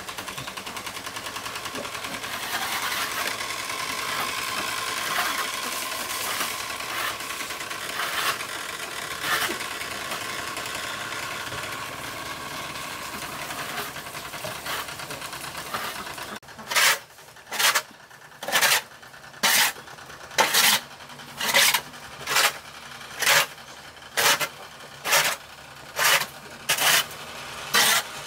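A large bamboo water wheel turns in a river with a steady rattling and splashing of water. About midway this gives way to a long-handled tool scraping over a dirt pig-pen floor in regular strokes, about one a second.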